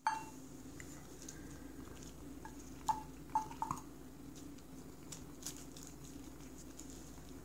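A metal spoon clinking against a stainless steel cat food bowl: one ringing clink at the start and a quick cluster of clinks about three seconds in, over a steady low hum. A few faint clicks follow.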